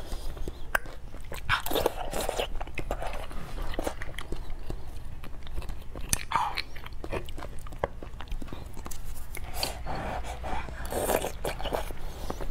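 Close-miked eating sounds: wet chewing, biting and lip smacks as braised beef marrow bones and their marrow are eaten, with scattered small clicks.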